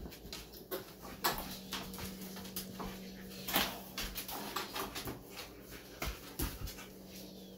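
Several dogs moving about on a tiled floor: scattered sharp clicks and knocks of claws and bowls. A steady low hum starts about a second in.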